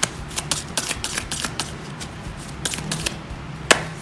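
A deck of playing cards being shuffled by hand in a false shuffle: a run of quick, irregular card snaps and clicks, with one louder snap near the end.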